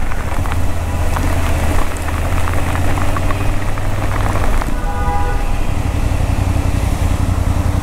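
Heavy rain falling and spattering on a BMW motorcycle and its rider, over the steady low hum of the bike's engine at slow road speed. A short horn toot sounds about five seconds in.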